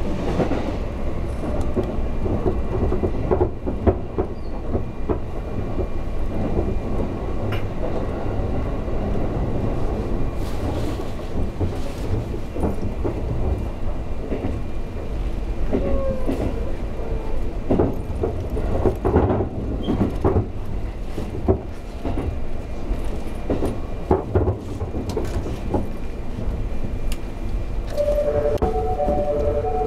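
Running noise heard from inside the front car of a 251-series electric train moving at speed: a steady low rumble with irregular clacks of the wheels over rail joints and points. About 28 seconds in, as the train runs into a station, a repeating chime of a few alternating tones starts.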